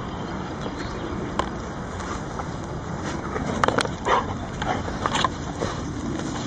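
Retrievers digging in turf, with a cluster of short dog vocal sounds between about three and five seconds in.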